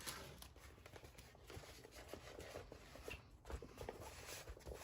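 Near silence with faint handling noises: soft rustles and small scattered taps as a plasticky diamond-painting canvas is handled.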